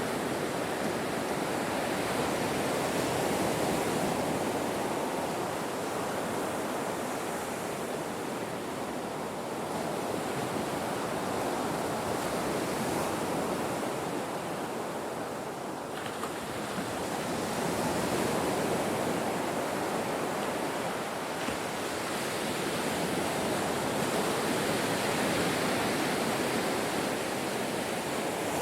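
Ocean waves breaking on a shore: a steady wash of surf that swells and eases slowly every several seconds.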